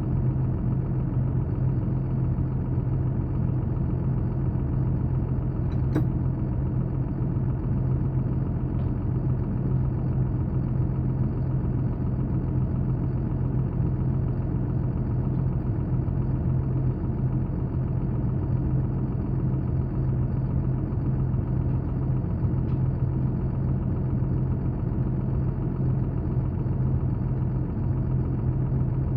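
A machine running with a steady low drone that does not change, with one sharp click about six seconds in.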